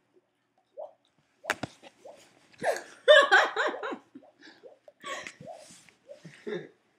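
People laughing in short, broken bursts, loudest a couple of seconds in, after a single sharp mouth click about one and a half seconds in.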